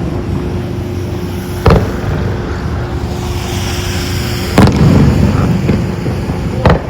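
Aerial fireworks shells bursting: three loud booms, roughly every two to three seconds, each with a rumbling echo. A crackle of sparks comes in the middle.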